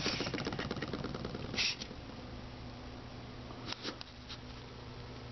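Tabletop handling sounds: a rapid clicking rattle, about ten clicks a second, fading out about a second in, then a brief rustle and a couple of light knocks, over a steady low hum.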